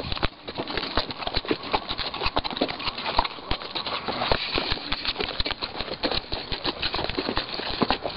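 Horses walking on stony, gravelly desert ground, their hooves clip-clopping in a dense, irregular run of knocks.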